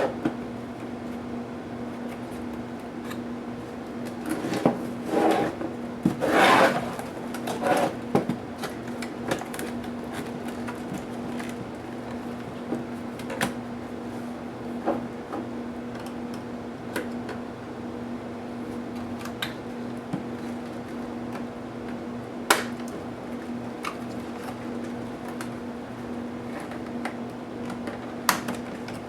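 HP DV8000 laptop parts being handled during disassembly: a few seconds of scraping and rubbing about five seconds in, then scattered sharp clicks of plastic and small parts, over a steady low hum.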